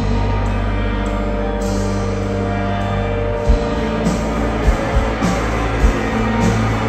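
Live rock band playing, heard from the crowd: electric guitar and a heavy bass line, with cymbals joining about a second and a half in and regular drum hits about halfway through.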